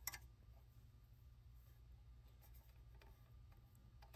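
Near silence with a low steady hum, broken right at the start by a short metallic click of open-end wrenches on the cable adjusting nut, and a few faint ticks later.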